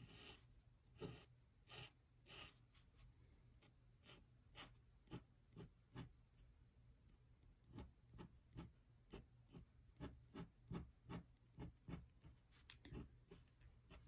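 Faint scratching of a dip pen's metal nib on paper in short strokes, a few scattered strokes at first, then a steadier run of about two a second from around the middle.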